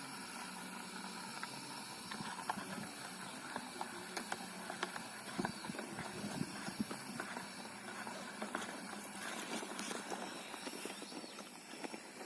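Faint steady hiss with scattered light clicks and ticks.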